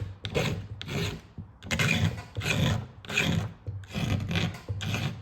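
Steel hand file rasping across the rakers (depth gauges) of an Oregon chainsaw chain, about eight short back-and-forth strokes, each under a second.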